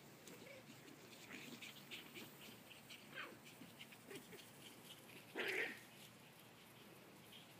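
A small dog gives one short bark about five and a half seconds in, the loudest sound here, with faint high ticks scattered throughout.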